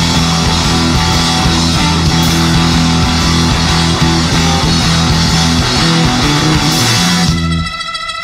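Live rock band playing loud: organ, electric guitar, bass guitar and drum kit together. About seven and a half seconds in, the band stops suddenly, and a single held chord rings on.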